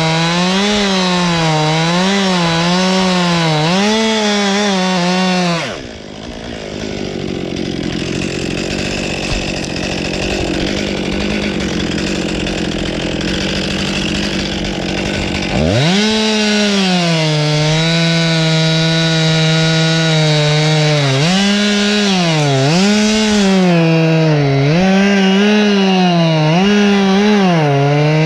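Two-stroke chainsaw running hard, its pitch dipping and rising as it is loaded in the cut. About six seconds in the engine note falls away, leaving about ten seconds of rough, noisy sound without a clear pitch. The saw then revs back up abruptly and goes on cutting with a wavering pitch.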